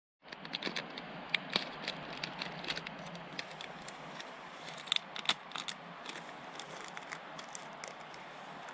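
Plastic ramen sachet crinkling in the hands and being torn open, a run of irregular sharp crackles with a few louder snaps, over a steady rushing noise.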